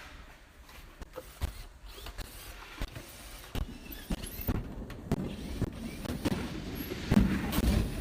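Scattered clicks, knocks and rubbing of hands handling a welding machine's metal casing and parts during reassembly, busier in the last few seconds.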